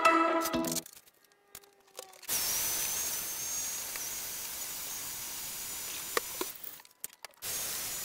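Background music ending within the first second, then a steady hiss with a faint thin high tone, two small clicks and a brief dropout near the end.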